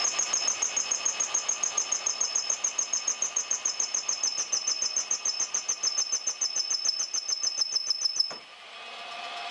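Lathe-driven fly cutter taking an interrupted cut across a welded metal plate, its single tool striking the work in a rapid, even rhythm with a high metallic ring. The cutting stops abruptly with a sharp click near the end, leaving only the lathe's steady running hum.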